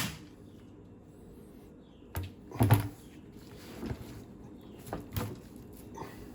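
A few separate metal knocks and clicks from a wrench and socket as the stern drive's mounting nuts are run down, with a double knock about five seconds in.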